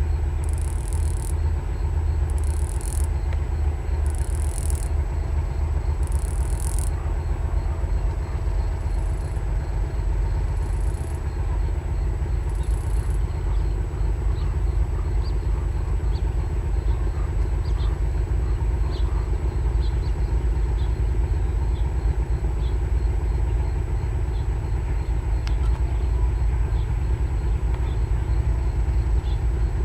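Cicada making a ratchet-like call in a series of short high-pitched bursts, about one every one and a half to two seconds. The bursts grow fainter and stop about 13 seconds in. A steady low rumble runs underneath and is the loudest sound.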